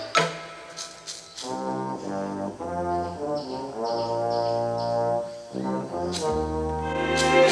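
Background film score led by brass: held notes that change every second or so, with sharp accented hits at the start and again near the end.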